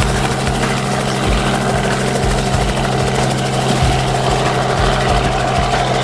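Robinson R44 helicopter heard from inside the cockpit during take-off and climb: the steady drone of its six-cylinder piston engine and rotor.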